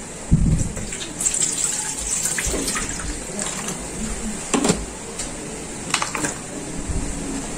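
Water splashing in a stainless steel cooking pot. There is a thump near the start, and later a few sharp clicks and plops as sliced onion pieces are tipped from a plate into the water.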